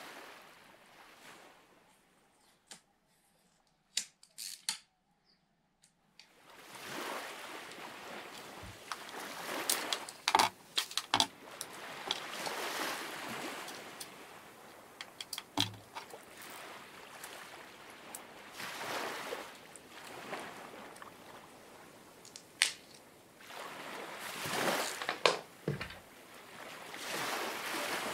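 Water sloshing and washing in swells that rise and fall every few seconds, with scattered sharp clicks and knocks. The first few seconds are quieter, with only a few isolated clicks.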